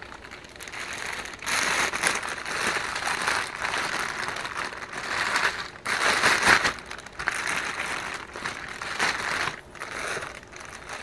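Plastic packaging crinkling and rustling as it is handled, in irregular bursts, loudest a little past the middle.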